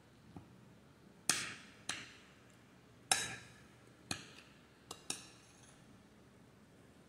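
Metal spoon clinking against a glass bowl while scooping food: six or seven sharp clinks at uneven intervals, each ringing briefly.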